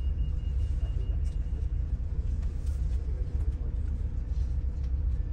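Double-decker bus driving along a city road: a steady low rumble of engine and road noise.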